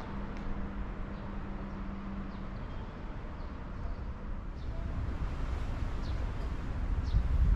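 Outdoor ambience: a steady low rumble with faint, short, high bird chirps about once a second, and a low hum for the first couple of seconds.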